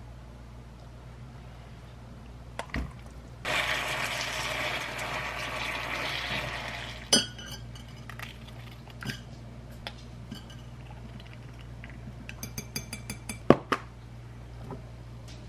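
Water pouring into a glass bowl for about three and a half seconds, then a scatter of sharp clinks of a metal spoon and dropped pieces against the glass, with a quick run of clinks near the end.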